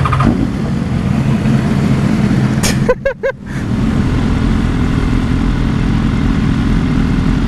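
BMW S1000RR sportbike's inline-four engine running steadily, heard from the rider's helmet, with a brief dropout and a short chirping transition sound about three seconds in; afterwards the engine keeps running with road noise as the bike creeps along in slow traffic.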